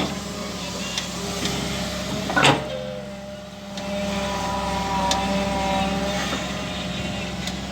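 Engine of a fibre-optic cable-pulling machine running steadily, with a sharp knock about two and a half seconds in and a steady whine joining from about four seconds in as the machine works.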